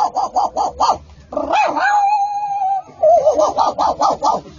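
A man imitating a dog with quick runs of high yips, about six a second, broken in the middle by one long steady held note.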